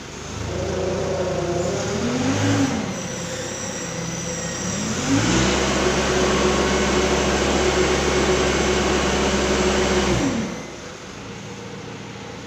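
Forklift engine running, with a brief rise in pitch about two seconds in. About five seconds in it steps up to a louder, steady higher speed while the hydraulics raise the mast. It drops back suddenly to a quieter idle about ten seconds in.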